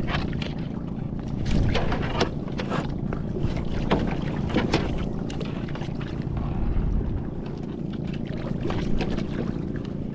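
Small outrigger boat moving across open water: a steady low rumble with frequent short splashes and slaps of water against the hull and outrigger, and wind buffeting the microphone.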